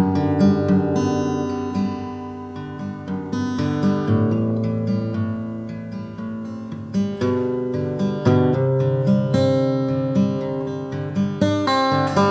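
Background music played on acoustic guitar, a steady run of plucked notes and chords.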